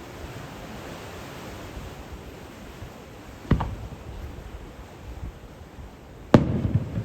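Fireworks shells bursting: one sharp boom about three and a half seconds in and a louder one near the end, followed by a brief rumbling crackle, over a steady rushing background.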